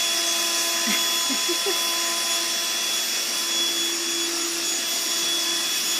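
Vacuum cleaner running steadily, its motor holding one even pitch throughout.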